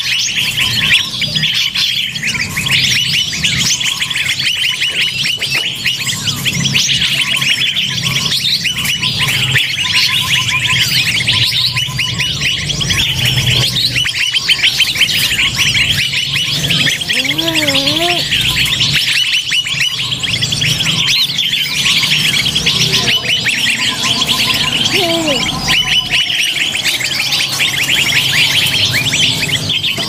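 Bird-luring track: a dense, unbroken chorus of many small birds chirping and twittering at once, over a low hum. A few wavering lower whistles stand out about halfway through, and one falling whistle comes a little later.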